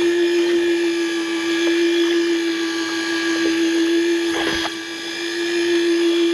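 A small electric motor or pump whines steadily at one pitch, with a brief knock about four and a half seconds in.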